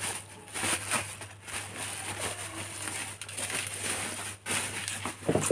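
Plastic bubble wrap crinkling and crackling in irregular bursts as it is handled and pulled off a packed item.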